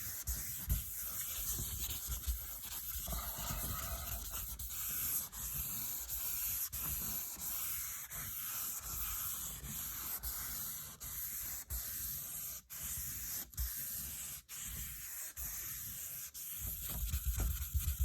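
1000-grit wet sandpaper on a flexible sanding block rubbed back and forth by hand over the clear coat of a car hood: a steady wet, hissing scrub. It breaks off briefly about once a second as the strokes change direction.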